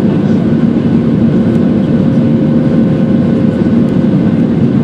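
Boeing 737-700's CFM56-7B turbofan engines heard from inside the cabin over the wing during the climb after takeoff: a loud, steady low roar with a constant hum running through it.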